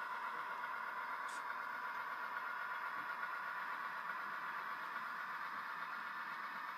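Steady background hiss of a room, with faint voices murmuring underneath and a brief high tick about a second in.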